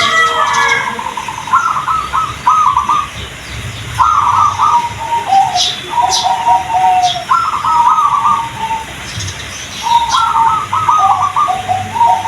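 Zebra dove (perkutut) singing: repeated phrases of quick, stuttering cooing notes, one after another every second or two, with a few short high chirps over them.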